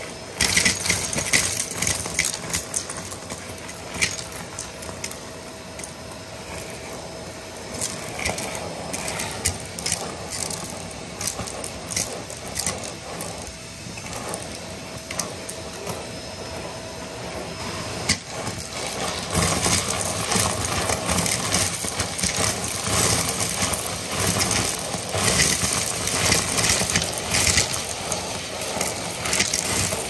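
Shark vacuum running through its hose wand, a steady whine under a constant clatter of glitter, sequins and confetti rattling up the tube. It gets louder and busier about two-thirds of the way through.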